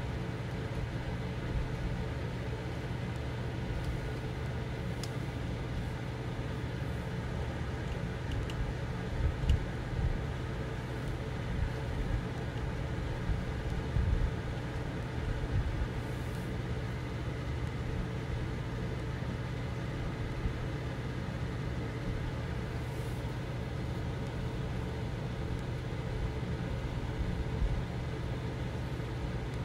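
A steady low mechanical hum, like a fan or air conditioner running, with a few soft low knocks about nine and fourteen seconds in.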